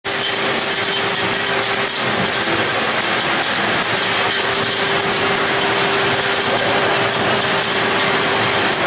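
EPS foam granulating (pelletizing) line running: a steady, loud machine noise with a constant hum.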